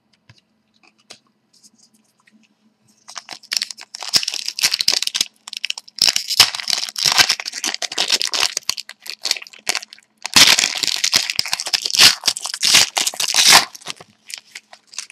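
A trading-card pack wrapper being torn open and crinkled, with cards handled. After a quiet first few seconds, the tearing and crinkling comes in dense bursts, with a short pause about two-thirds of the way through.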